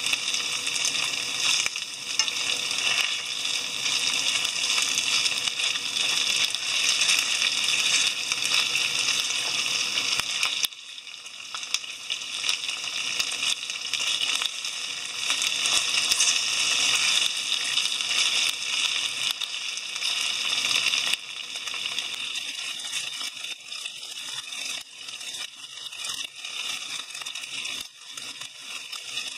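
Chicken thigh pieces and eggplant sizzling in oil in a frying pan, turned with wooden chopsticks. The sizzle drops down a step twice, about a third and two-thirds of the way through, then goes uneven with small crackles.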